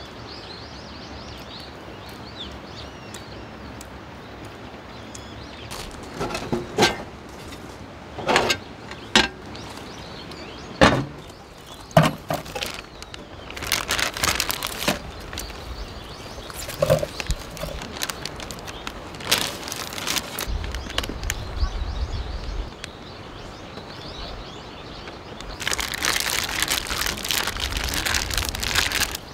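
Steady outdoor background hiss, then a scattering of sharp knocks and clatters, with a dense stretch of rustling near the end.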